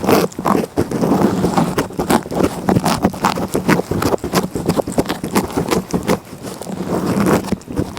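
A cat licking right up against the microphone: a fast, irregular run of wet, rasping tongue strokes.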